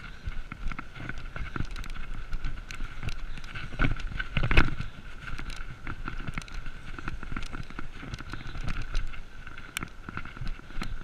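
BMX bike rolling fast down a dirt and gravel track: tyres crunching and the bike rattling over bumps, with a bigger jolt about four and a half seconds in. A steady high-pitched whine sits over the rolling noise.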